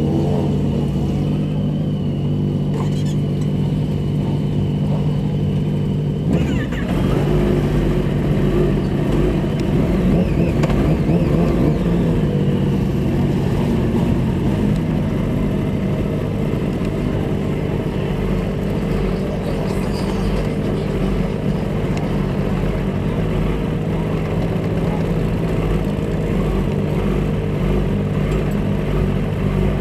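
Kawasaki ZX-10R inline-four engine idling steadily, heard close up from behind the fairing, then revving and pulling away at low speed about six seconds in.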